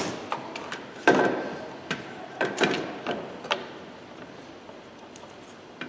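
Hands working on a headlight: a series of sharp clicks and knocks with a few short scrapes and rustles over the first three and a half seconds, then only faint background.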